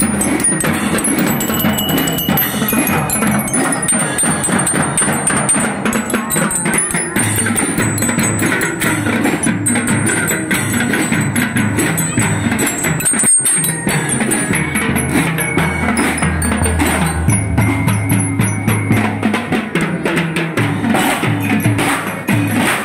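Parade band music: drums and other percussion playing a steady marching beat, with bright bell-like notes over it. The sound drops out for a moment about thirteen seconds in.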